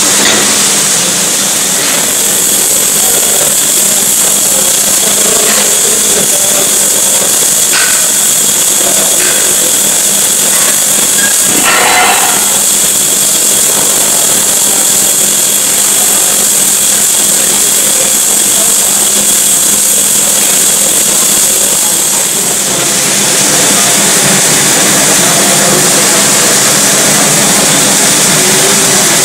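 Electric arc welding in a workshop: a steady loud hiss and crackle with a constant low hum, and a few short crackles about twelve seconds in.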